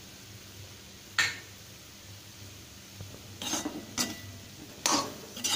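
Metal spatula scraping and clinking against a kadai (Indian wok) while stirring a cauliflower and egg stir-fry. One sharp clink comes about a second in, then several scraping strokes follow from about three and a half seconds on.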